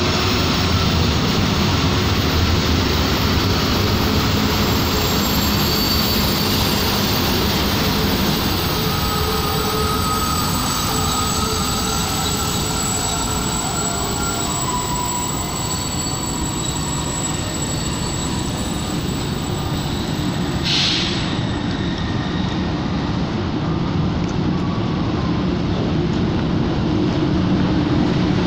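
Container freight wagons rolling past close by: a steady, heavy rumble of wheels on the rails, with faint high wheel squeals now and then and a brief hiss about twenty-one seconds in. Near the end a low engine drone grows louder as the diesel locomotive of a second freight train draws in.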